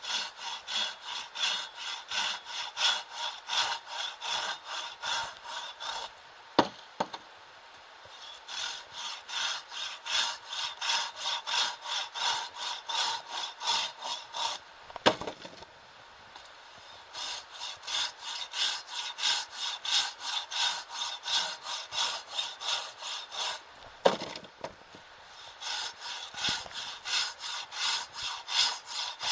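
Hand saw cutting wood, in steady back-and-forth strokes at about three a second. It stops three times for a second or two, each pause marked by a sharp knock.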